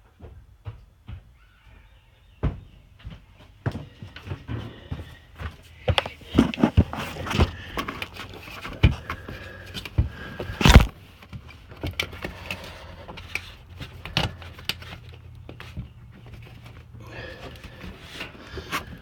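Irregular knocks, clicks and thuds of things being handled and moved about, with one much louder bang about eleven seconds in.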